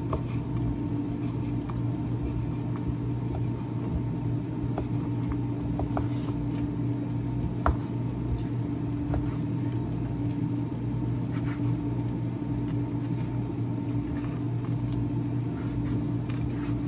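Steady hum of a running air fryer's fan, with a knife cutting through smoked sausage onto a wooden cutting board and a few sharp taps of the blade on the board.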